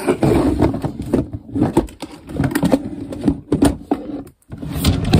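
Rummaging through makeup products: plastic cases and containers knocking and scraping together as they are handled, in irregular clatters.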